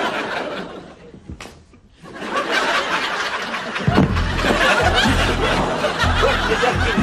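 Audience laughing after a punchline, swelling again about two seconds in, with music coming in underneath about four seconds in.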